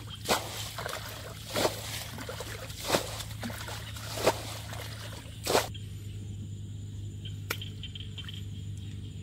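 Muddy water splashing out of a plastic bucket as it is scooped from a shallow pool and tipped over a bank, five splashes at an even pace, about one every second and a half. This is someone bailing a pool dry by hand. The splashes stop a little past halfway, leaving a steady low hum and a faint tick.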